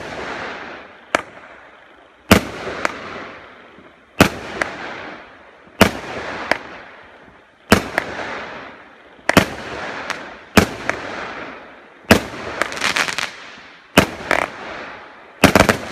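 A 20 mm consumer fireworks battery (cake) firing about ten shots, one every one and a half to two seconds, each a sharp bang that trails off in a fading hiss. In the last few seconds, rapid crackling follows the bursts as the crackling stars go off.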